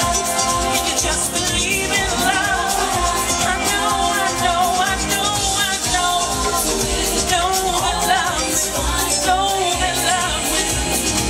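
A woman singing live into a microphone with wavering, melodic vocal lines over an amplified house-music track with a steady beat.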